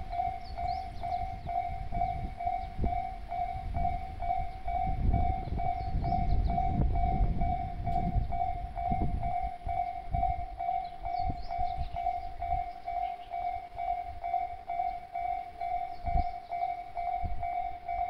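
Japanese railway level-crossing alarm ringing: one electronic bell tone repeated at an even, steady pace, the warning that a train is approaching. A low rumbling noise runs underneath, strongest in the middle.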